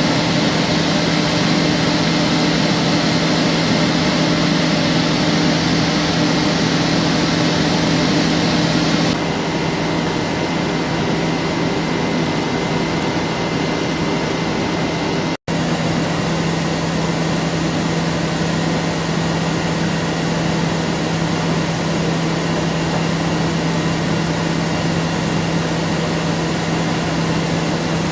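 SAFOP Leonard 70 CNC-B heavy CNC lathe running: a steady machine hum with a held low tone. The higher part of the sound drops a little about nine seconds in, and the sound cuts out for an instant near the middle.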